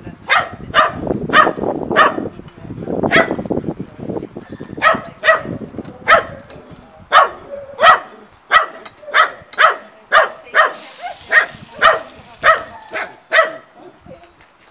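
A dog barking repeatedly, about two barks a second, the barks stopping shortly before the end. A low muffled rumble runs under the first few seconds.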